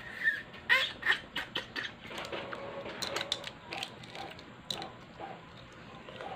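Balut eggshell being cracked and peeled by hand: irregular brittle crackles and sharp clicks, a quick cluster in the first two seconds and more scattered ones after.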